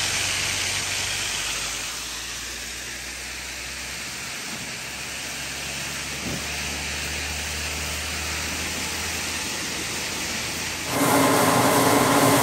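Grain vac hose sucking soybeans out of a grain bin: a steady rushing hiss of air and grain through the hose. About 11 seconds in it gives way to the grain vac machine running, louder, with a steady hum of several tones.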